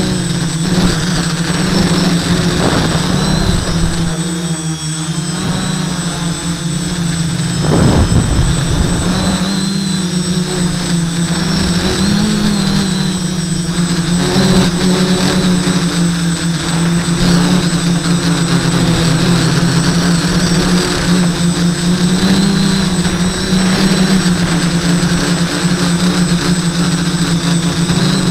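Quadcopter's four brushless motors and propellers running steadily in flight, a low drone whose pitch shifts a little as the throttle changes, with a steady high whine above it. A brief rush of noise comes about eight seconds in.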